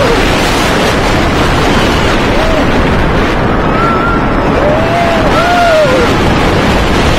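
Lightning Racer wooden roller coaster train running at speed on its wooden track: a loud, steady rush of wind on the microphone over the rumble of the wheels, with a few short shouts from riders between about two and a half and six seconds in.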